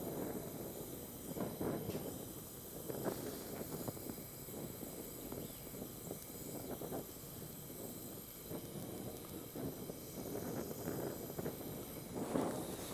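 Gas brazing torch flame hissing steadily with an uneven flutter while heating cast iron and melting bronze brazing rod into the joint. A brief louder rustle comes near the end.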